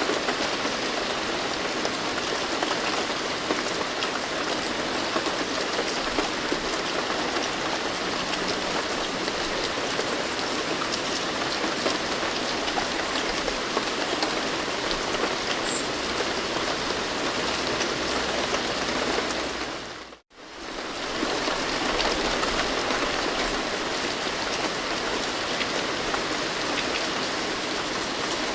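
Steady rain falling, a dense even hiss with fine drop ticks throughout. About twenty seconds in it fades out to a moment of silence and fades straight back in, as at the loop point of a recording.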